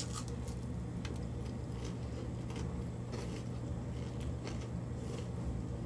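A chocolate-covered potato chip being bitten and chewed: a bite at the start, then faint, irregular crunching clicks over a steady low hum.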